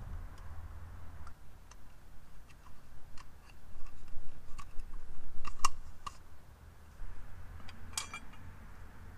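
Scattered sharp clicks and taps of a plastic trailer-hitch wiring socket and its wires being handled, with the loudest click a little past the middle and another near the end.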